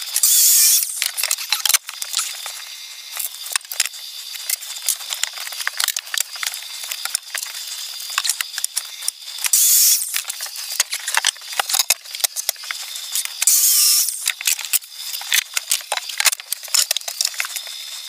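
Miter saw cutting pine boards to length: three loud bursts of about a second each as the blade goes through the wood, near the start, about ten seconds in and about fourteen seconds in. Between the cuts comes a fast, uneven clatter of clicks and knocks as boards are handled.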